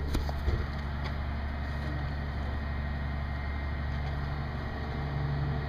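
Engine of a truck-mounted crane running steadily with a low, even drone while it lifts a 15-ton rooftop HVAC unit.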